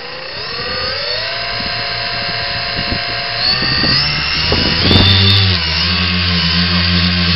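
An X900 tricopter's three brushless motors and propellers spool up with a rising whine, then run steadily. About five seconds in the pitch shifts and settles as the craft lifts off.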